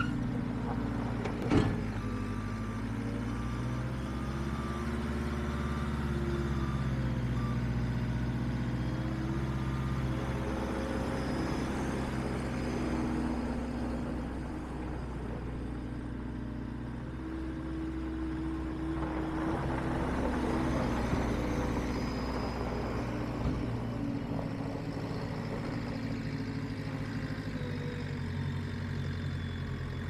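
Diesel engine of a 2016 JCB 260 skid steer loader running while the machine drives and turns, its pitch rising and falling with the throttle. A sharp clunk about a second and a half in, and a repeated short beep that stops about ten seconds in.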